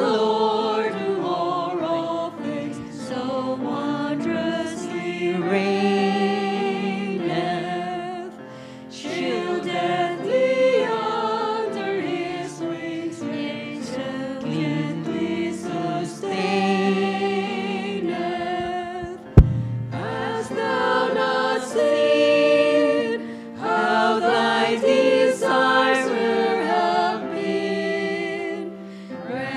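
Choir singing, with a single sharp click about two-thirds of the way through.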